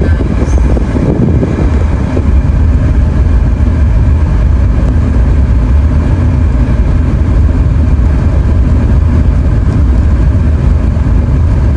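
Steady low rumble of a vehicle on the move, engine and road noise.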